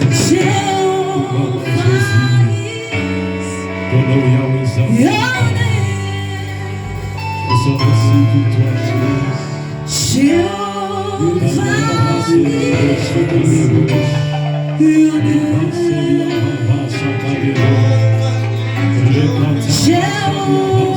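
Gospel worship music: singing with female and male voices over steady instrumental backing.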